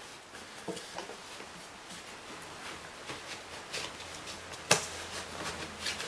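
Paper Kirby vacuum filter bag rustling and crinkling as it is handled and pushed into the vacuum's cloth outer bag, with scattered soft taps and one sharper knock near the end.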